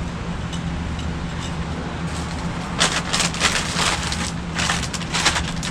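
Plastic packaging crinkling and rustling in a run of short bursts during the second half, as raft parts are handled, over a steady low hum.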